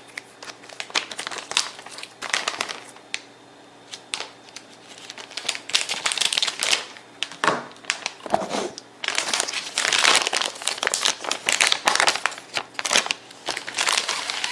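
Plastic packaging being crinkled and handled while a component is unwrapped, in irregular crackling bursts, busiest about two thirds of the way through.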